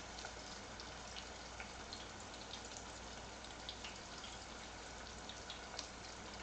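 Chả giò (Vietnamese egg rolls) deep-frying in a pan of hot oil: a faint, steady sizzle scattered with small pops and crackles as the rolls are turned.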